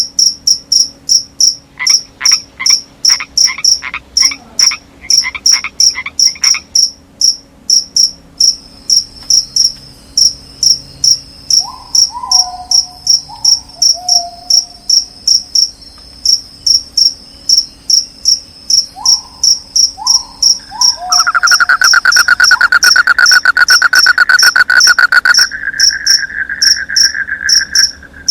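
Crickets chirping in a steady high rhythm, about two chirps a second, with frogs calling: a run of repeated croaks early on, a few short falling notes in the middle, and a loud, fast trill starting about three quarters of the way through and lasting several seconds.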